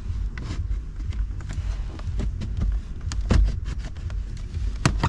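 Scattered clicks and knocks of hands and tools working a car's factory multimedia unit and its plastic mountings loose from the dashboard, over a low rumble, with a sharper knock near the end.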